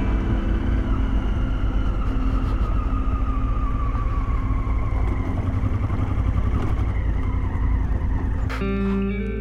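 Honda Africa Twin's parallel-twin engine and its tyres on loose gravel as the motorcycle rides along, the engine note slowly falling as it slows down. Background music comes in near the end.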